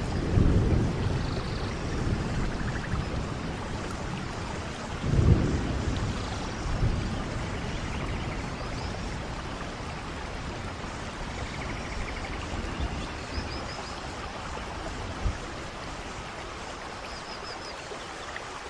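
Rainstorm: steady rain with low rolls of thunder, the loudest just after the start and again about five seconds in. The rain eases slightly toward the end.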